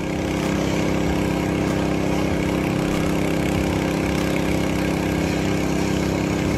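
An engine idling steadily, a constant low hum with an even hiss over it.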